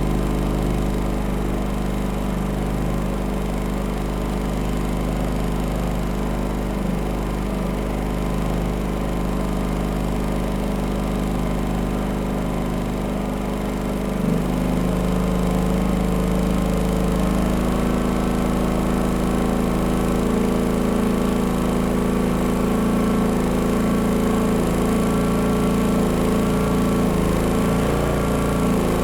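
Pulsar G450RN inverter generator's engine running steadily. About halfway through, after a small knock, its note rises and gets a little louder as the engine speeds up.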